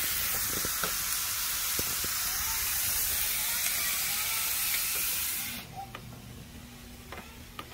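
Ribeye steaks sizzling on the hot grill plate of a Ninja Woodfire outdoor grill, a steady hiss that cuts off abruptly about five and a half seconds in as the lid closes. A low steady hum of the running grill follows.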